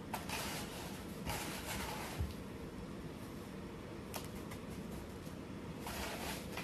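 A hand scooping wet plaster mix out of a plastic bucket, giving three short bursts of scraping and rustling, with a light tap about four seconds in. A steady low hum runs underneath.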